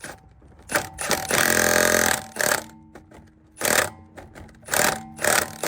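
Impact wrench spinning wheel lug nuts down in a series of short trigger bursts, with one longer run of about a second between one and two seconds in.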